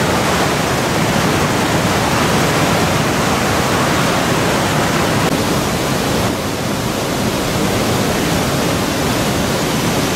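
Steady rushing of a fast white-water mountain river, with a slight drop in level about six seconds in.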